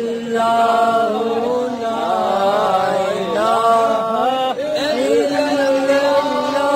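Male voices chanting a devotional Islamic chant in long, drawn-out notes that waver and slide in pitch, with short breaks between phrases.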